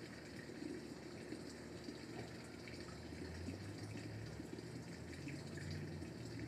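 Faint steady background ambience: an even hiss with a low hum that grows a little stronger partway through.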